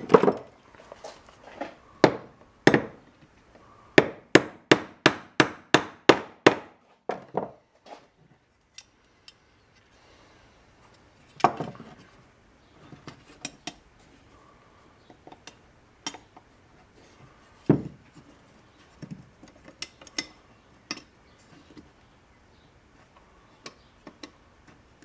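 Hammer knocking the parking-brake lever into place on a new rear drum brake shoe: a couple of sharp metal blows, then a quick even run of about nine blows at roughly three a second, followed by scattered lighter metal clinks as the parts are handled.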